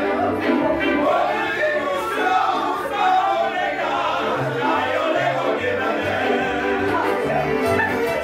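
Polish highland (góral) string band, fiddles and double bass, playing a lively tune while several voices sing along. The bass notes mark a steady beat under the singing.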